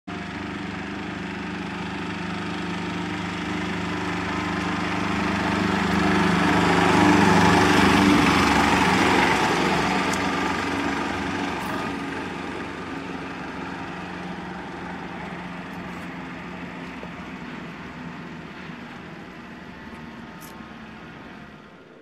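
Small diesel engine of an Aixam Mega van driving by. It grows louder to a peak about seven seconds in, then fades slowly as the van moves away.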